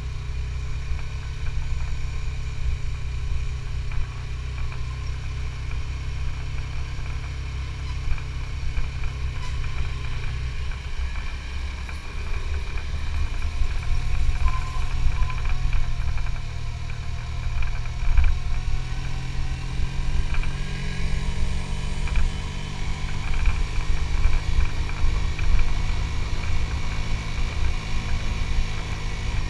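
Suzuki GSX-S150's single-cylinder engine running under way. Its note drops about ten seconds in, then rises again and stays louder through the rest.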